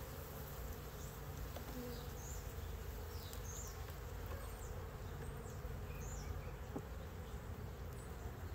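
Honeybees humming steadily from an opened hive as the frames are worked, with a faint click or two of a metal hive tool against the wooden frames.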